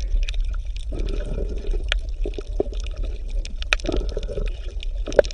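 Underwater water sound: a steady low rumble with scattered sharp clicks, and stretches of bubbling about a second in and again near four seconds.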